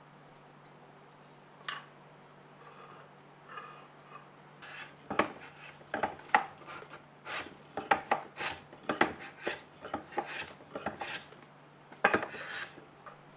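Hand-worked abrasive strokes rasping on a wooden Japanese plane block (kanna dai) as it is trued by hand, about two strokes a second. A few faint taps come first, and the strokes start about four seconds in.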